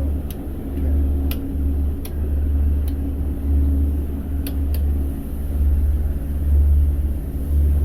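Powerboat underway on its main motors: a steady low engine drone with a faint hum above it, and a few faint clicks.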